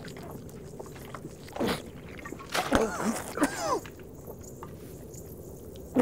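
A man swigging from a bottle, with gulps and short strained vocal sounds (grunts and gasps that slide in pitch) about one and a half seconds in and again from about two and a half to nearly four seconds. A sharp click comes at the very end.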